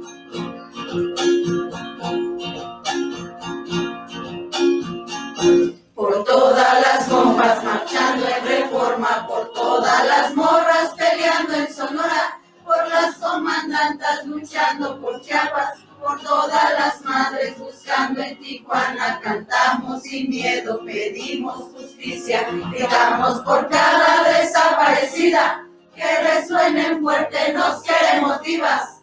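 Protest song: a strummed acoustic string instrument plays chords alone, then after about six seconds voices come in singing over it.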